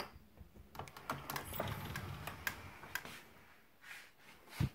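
A mirrored closet door being handled and swung open: a run of light clicks and a low rumble, then a single low thump near the end.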